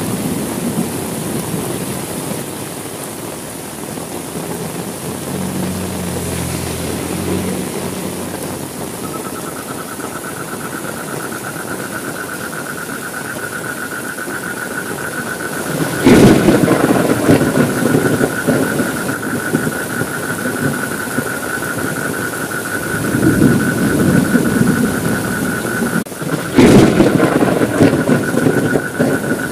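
Heavy rain falling steadily, with two sudden loud thunder cracks, about halfway through and near the end, each rumbling off over a few seconds. A steady high-pitched whine joins about a third of the way in and holds.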